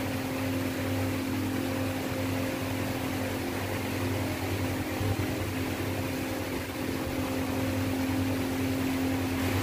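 A steady machine hum: a constant low drone with fixed tones, over an even hiss that does not change.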